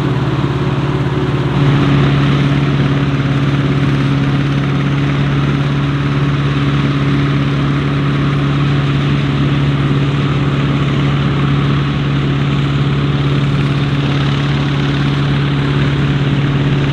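Heavy diesel farm machinery of a maize silage harvest running steadily: a constant engine hum with a dense rushing noise over it. The engine note shifts and gets slightly louder about a second and a half in.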